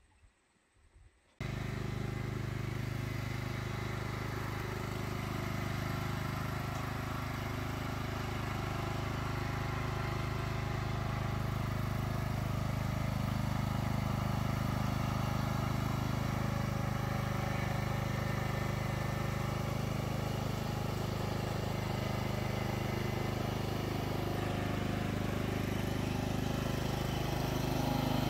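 Small engine of a garden machine running steadily, starting abruptly about a second and a half in and holding an even pitch.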